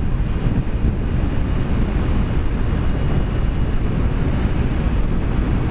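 Steady wind rush over the microphone with motorcycle engine and tyre noise, ridden at road speed.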